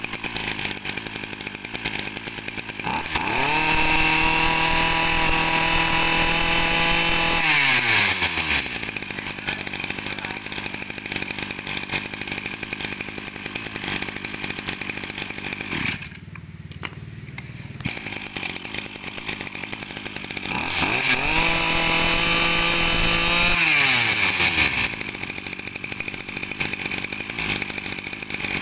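Komatsu Zenoah 26cc two-stroke brush cutter engine idling, revved twice to a high steady speed for a few seconds each time and dropping back to idle. There is a short break near the middle.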